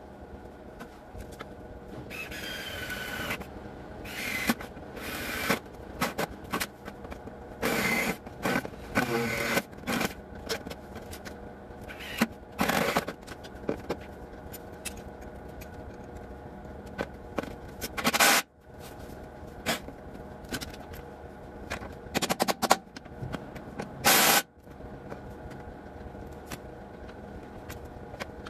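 A 3/8-inch impact wrench hammering in short bursts of half a second to a second, about nine times, loosening the van's front bumper bolts.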